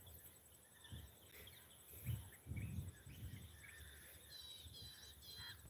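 Quiet open-air ambience with small birds chirping, and near the end a bird giving three short ringing calls. A couple of low muffled thumps come about two seconds in.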